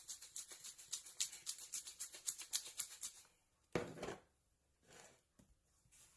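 Rapid, rhythmic light scraping or rubbing strokes, several a second, that stop about three seconds in. A single short, louder clatter follows, then a few faint knocks.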